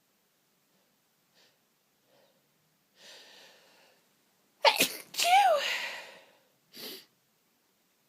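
A person sneezing: a breathy inhale builds up for about a second, then a loud, sharp sneeze comes in two bursts, the voiced part falling in pitch. A short breath follows near the end.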